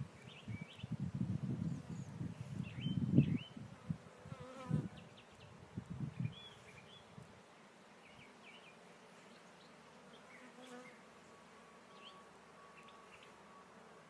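Honeybees humming around an opened hive as its frames are worked by hand. Through the first half there is an uneven low rumble with knocks, the loudest about three seconds in, and it dies away after about seven seconds.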